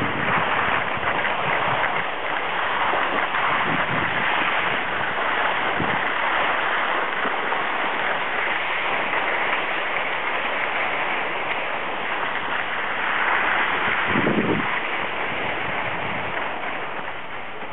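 Skis sliding and scraping over packed snow, a steady hiss, with a brief low rumble late on.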